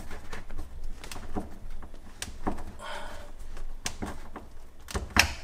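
Phillips-head hand screwdriver driving a screw into an under-sink cabinet wall: scattered clicks and creaks as the screw is turned, a short rasp about three seconds in, and a sharper knock or two a little after five seconds.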